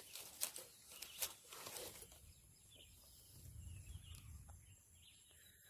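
Faint outdoor ambience, with a few brief rustles in the first two seconds and a low rumble around the middle.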